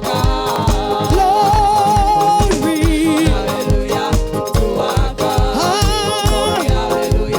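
Upbeat gospel praise music from a live band: a steady drum beat about twice a second, keyboard and bass, with wordless held sung notes over it.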